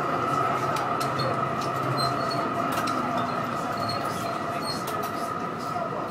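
Melbourne tram running along the street, heard from inside the car: a steady rumble of wheels on rails with a steady high-pitched whine and scattered light clicks and rattles.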